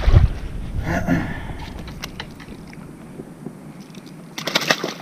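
A small snook splashing and flapping in the shallow water for about half a second near the end as it is grabbed by hand. Before that, scattered light clicks and a wind rumble on the microphone.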